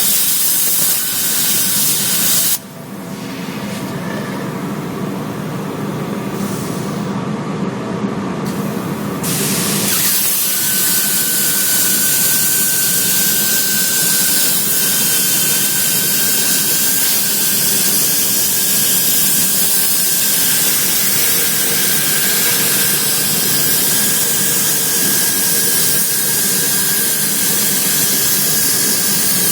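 CNC cutting torch running with a loud, steady gas hiss. The hiss dips briefly a couple of seconds in, then grows louder and brighter about ten seconds in, and a thin steady whistle comes in with it and holds.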